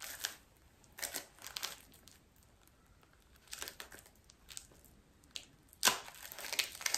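A strip of wrapping crinkling as it is crumpled and twisted in the hands, in short irregular crackles with the loudest just before the end.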